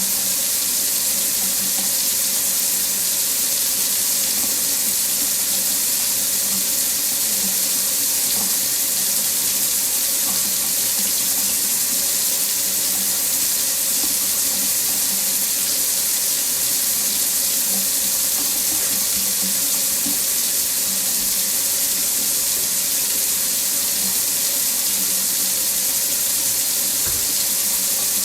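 Water running steadily from a faucet into a sink, an even hiss with no change.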